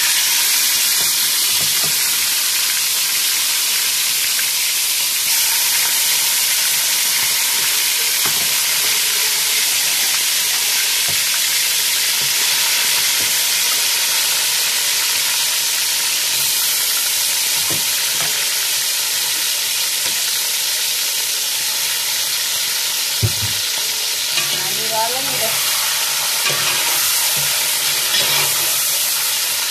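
Pieces of marinated meat frying in hot oil in an aluminium pot: a loud, steady sizzle, with a single knock about 23 seconds in.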